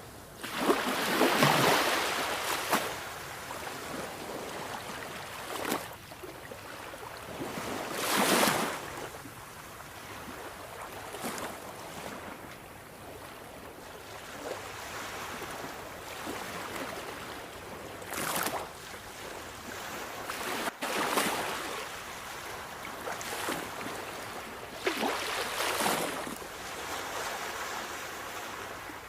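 Sea waves washing on a shore: a steady hiss of surf with several louder waves breaking every few seconds, the strongest near the start and about eight seconds in.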